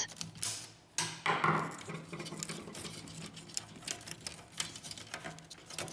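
Plastic plate of an HP LaserJet P1102 laser printer being unclipped from its two hooks and handled: a scrape about a second in, then a run of small clicks and taps of plastic against the printer frame.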